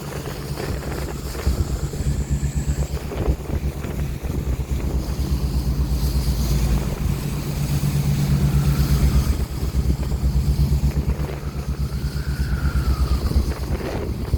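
Ocean waves and wind rushing over the microphone in gusts, over a steady low engine drone from a boat.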